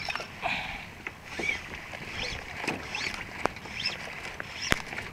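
Water sloshing and lapping against a plastic kayak's hull on choppy sea, with a series of short high squeaks and a single sharp click near the end.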